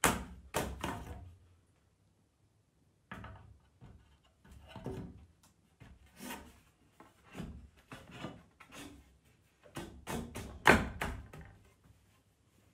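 2x4 lumber being pushed and knocked into steel Simpson joist hangers: irregular wooden thuds and knocks with scraping of wood against the metal brackets as the tight-fitting joist is forced in. The loudest knocks come in a cluster near the end.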